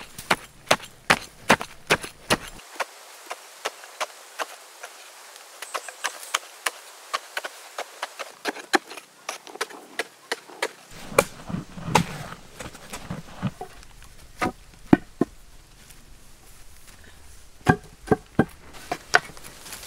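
Bamboo poles jabbing and digging into hard, dry sandy soil, making sharp irregular knocks about one or two a second, with a few heavier thuds.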